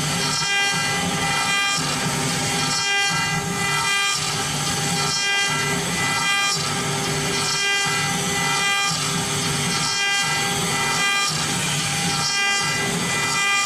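CNC wood router carving wood: the spindle's steady high whine over a rasping cutting noise that swells and dips about once a second as the bit passes back and forth through the wood.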